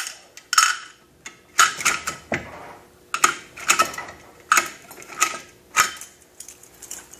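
Hand-cranked steel RPD belt loader clacking as its sprockets index and cartridges are pressed into the belt links: a sharp metallic clack roughly every half second.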